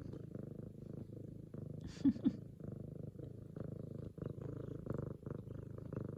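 An F2 Savannah cat purring loudly and steadily, close to the microphone. Two brief, louder sounds break in about two seconds in.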